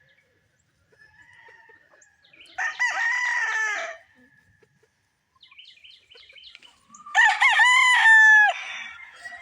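Gamefowl roosters crowing: two long crows about four seconds apart, the second louder, with softer short clucks and calls from other birds in between.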